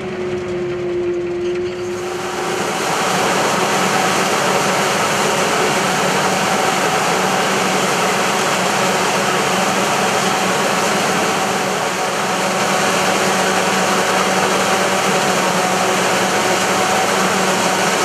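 Claas Jaguar 900 self-propelled forage harvester running flat out as its corn header cuts and feeds standing maize: a loud, steady machine drone with a dense hiss of crop over a steady hum. It starts about two seconds in, after a quieter steady tone.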